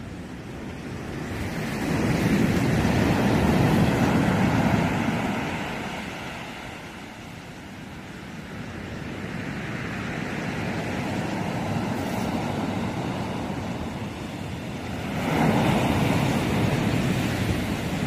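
Sea surf breaking and washing up the shore, a steady rush that swells into two loud surges, about two seconds in and again near the end.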